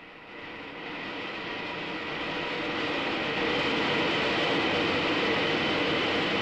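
Wind tunnel airflow: a steady rushing roar with a thin high whine that grows louder over the first three seconds or so, then holds steady as the flow over the wing passes its critical Mach number and a shock wave forms.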